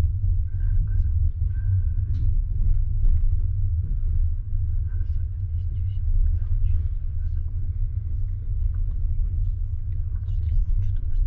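Low, steady rumble of a moving double-decker passenger coach, heard from inside the carriage, with faint higher clicks and squeaks on top.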